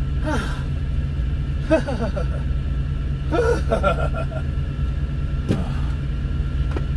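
Steady low rumble of an idling semi-truck diesel engine heard inside the cab, with a man's short grunts and mutters every second or two.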